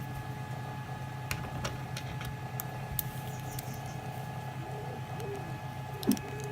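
Steady mechanical hum with two constant high whining tones, broken by scattered light clicks and ticks, and a few short wavering pitched sounds late on.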